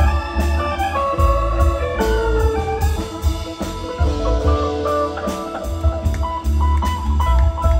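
Live band playing an instrumental passage, a keyboard's organ sound prominent over bass guitar, drums and electric guitars.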